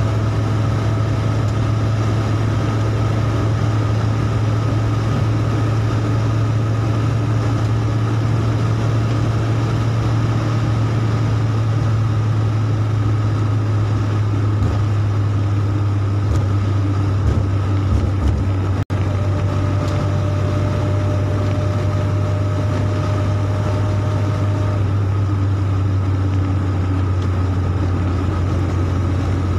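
Steady low drone of a vehicle's engine and tyres on a wet road, heard from inside the cabin while driving at highway speed. The sound drops out for an instant about two-thirds of the way through.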